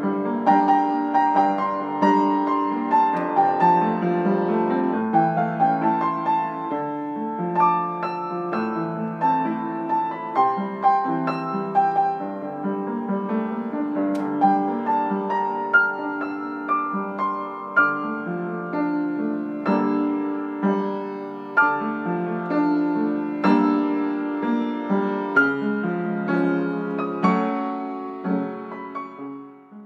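Background piano music, a steady run of single struck notes and chords, fading out at the end.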